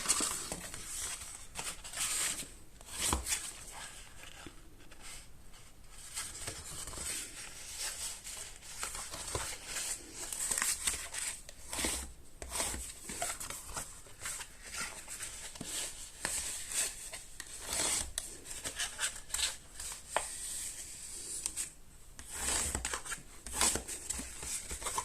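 Cardstock being folded along its score lines and burnished flat: irregular paper rustling, creasing and rubbing, with scattered short scrapes.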